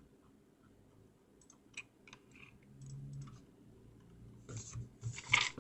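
Faint, scattered computer mouse and keyboard clicks, with a few soft rustles near the end.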